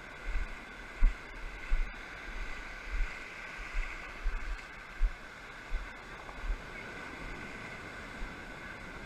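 Surf washing steadily over the beach, with dull low thumps on the microphone coming irregularly for the first six or so seconds before the sound settles into a steady wash.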